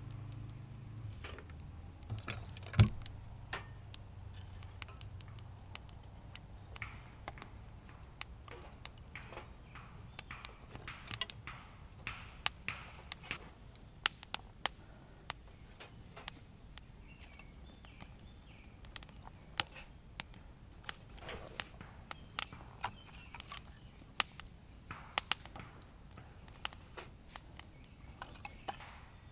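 Irregular sharp clicks and knocks scattered throughout, one loud knock about three seconds in, over a low hum that fades away within the first few seconds.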